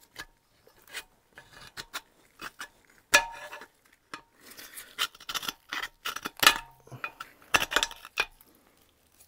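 A hand scraper scraping and clicking against metal in the liner seats of a Reliant engine block, in short irregular strokes, sparse at first and busier from about three seconds in. It is cleaning dirt and corrosion out of the seats so the new cylinder liners will seal.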